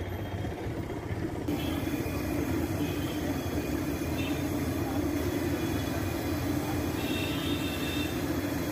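Street noise at first, then from about a second and a half in, a large kadai of chicken pakoda deep-frying in hot oil, sizzling and bubbling steadily.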